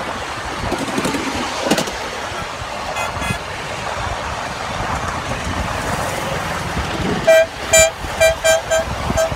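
A miniature train rumbles along its track. About seven seconds in, the train gives a rapid run of six or seven short, high toots.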